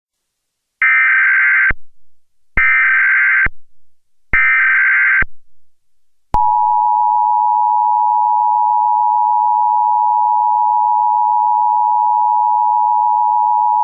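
Emergency Alert System tones: three short bursts of shrill modem-like SAME header data, each about a second long with short gaps between, then about six seconds in the steady two-tone EAS attention signal starts and holds unbroken.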